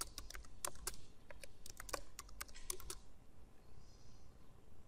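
Typing on a computer keyboard: a quick run of keystrokes for about three seconds, then thinning out near the end.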